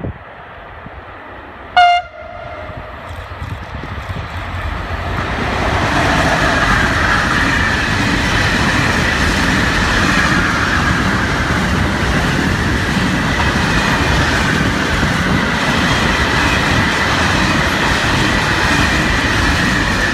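A locomotive horn gives one short blast about two seconds in. Then a container freight train approaches and rolls past, its wagons clattering over the rails with a steady high whine running through the noise.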